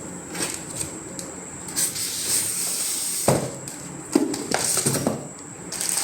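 Several sharp knocks and light clatters, the loudest about three and four seconds in, with stretches of hiss between them over a steady high-pitched whine.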